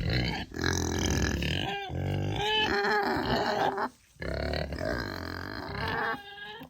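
Kunekune pigs grunting in a near-continuous run of throaty sounds, with a few higher, bending squeaky notes two to three seconds in and a short break about four seconds in.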